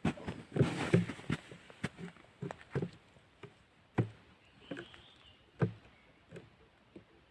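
Handling noises as a bottle is fitted under a birch-sap spout and fastened to the trunk: irregular clicks and knocks, with a denser burst of rustling and knocking about a second in.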